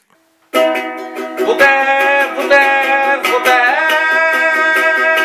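A man singing a short jingle to quick, even strumming on a ukulele, starting after a brief silence about half a second in.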